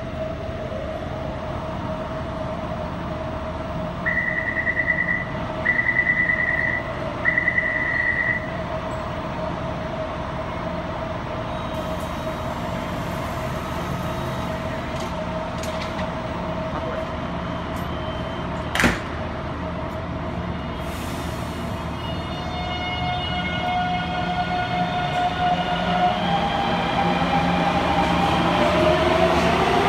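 Taipei Metro Bannan Line train at the platform: three door-closing warning beeps, a single sharp clunk, then the train's motors starting up with several whining tones that rise in pitch as it pulls out.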